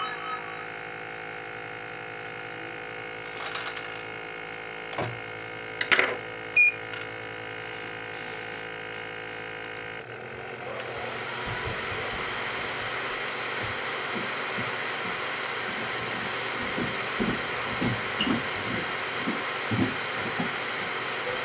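BGA rework station running steadily with its suction pick-up on, a hum of several steady tones broken by a few sharp clicks. About halfway through the sound changes abruptly to a louder hiss, with a run of low knocks near the end.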